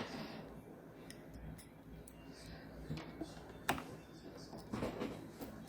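A few faint, scattered metal clicks and taps of a wrench working the bolt of a new battery terminal clamp as it is tightened.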